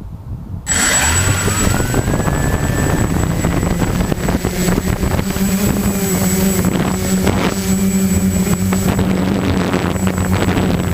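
Walkera QR-X350 quadcopter's four brushless motors and propellers starting suddenly about a second in, a whine gliding up in pitch as they spin up, then a steady loud buzz with a thin high whine above it.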